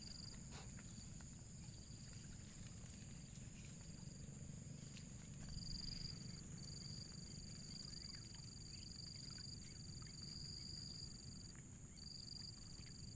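Steady high trilling of insects in two pitches, swelling briefly about six seconds in, over a faint low rumble and a few soft clicks.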